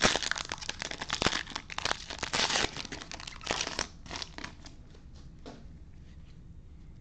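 Plastic foil wrapper of a trading-card pack crinkling as it is handled, dense for about four seconds, then thinning to a few light crackles.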